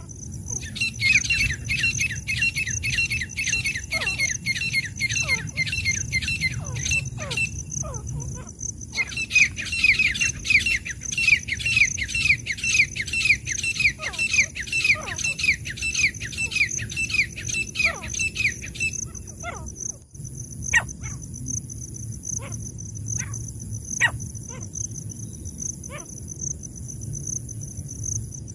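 Francolin (teetar) calling: two long bouts of quick, evenly repeated short notes, each note dropping in pitch, the first about six seconds long and the second about ten. A steady high insect whine runs underneath, with a few scattered single clicks after the second bout.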